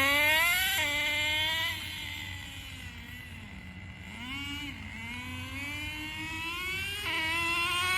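Traxxas 4-Tec nitro RC car's small two-stroke glow engine revving up and down as the car is driven. It fades as the car moves away about two seconds in and comes back louder near the end.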